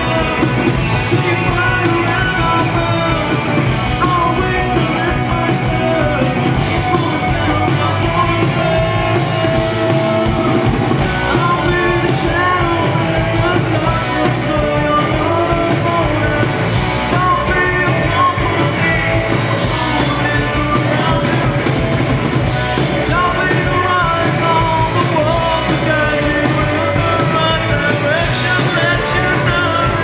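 A live rock band playing: electric guitar and bass guitar under a man singing into a microphone.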